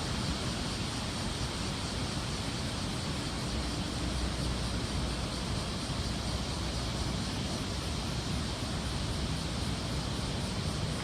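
Steady roar of heavy ocean surf raised by a typhoon swell, mixed with wind rumbling on the microphone.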